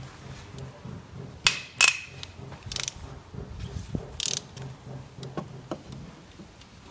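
Ratchet wrench on an 8 mm hex-bit socket breaking loose cylinder head bolts: sharp metallic cracks, the loudest about a second and a half and two seconds in, and quick runs of ratchet clicks about three and four seconds in.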